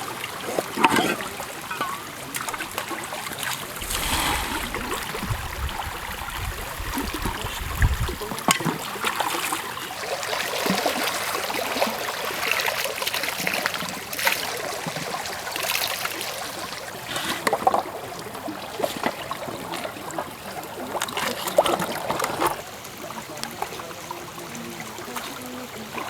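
Water trickling and splashing, with irregular clinks and knocks of handling throughout and a low rumble for a few seconds near the start.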